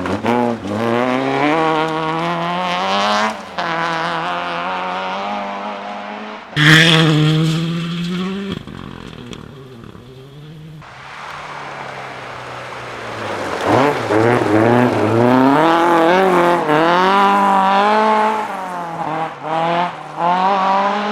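Rally car engines at full throttle, revs climbing and dropping through repeated gear changes as the cars pass. A sudden loud burst comes about six and a half seconds in; after a quieter stretch, another car climbs hard through the gears in the second half.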